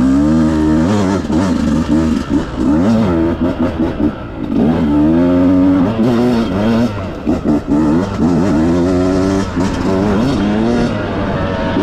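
Dirt bike engine accelerating away and riding, its pitch repeatedly climbing under throttle, then dropping as the rider shifts or backs off.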